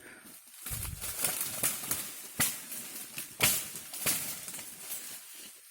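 Rustling handling noise of vines and brush, with three sharp knocks or snaps about two and a half, three and a half and four seconds in, the middle one the loudest.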